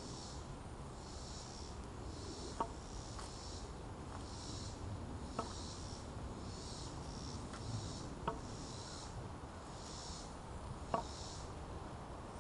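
Insects calling in regular high-pitched pulses about once a second. Over them come four sharp taps, a few seconds apart, of a wooden walking stick striking the asphalt path.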